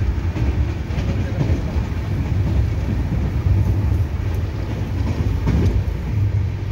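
Steady low rumble of a moving passenger train heard from inside a sleeper coach, with a few faint knocks from the carriage.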